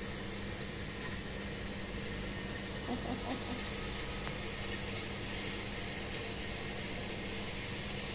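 Steady background hiss with a low, even hum, and three brief faint sounds close together about three seconds in.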